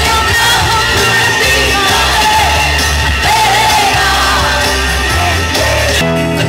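Live pop music: a woman singing over a band accompaniment with a steady bass, with shouts from the audience. About six seconds in it cuts abruptly to a different song.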